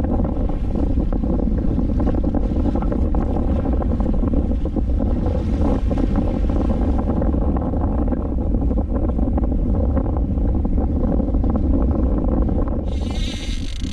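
Steady wind rumble on the microphone over a small boat at sea. About 13 seconds in, a fishing reel's drag suddenly starts buzzing as a hooked fish pulls line off the spool.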